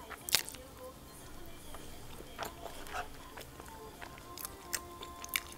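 Soft background music with eating sounds over it: a few short, sharp mouth clicks and smacks of chewing, the loudest about a third of a second in.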